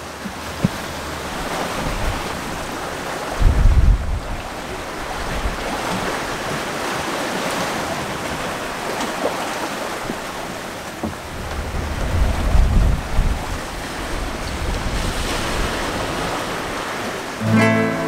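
Waves and rushing water around a sailing yacht running downwind in rough, whitecapped sea, with gusts of wind buffeting the microphone about four seconds in and again around twelve seconds in. An acoustic guitar starts being strummed near the end.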